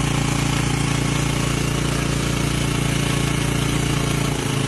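Engine running steadily aboard a fishing boat at idle, a constant low drone.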